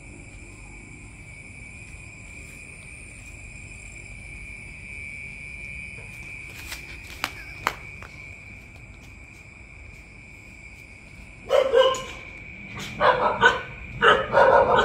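A dog barking in several short bursts over the last three seconds, over a steady high-pitched drone.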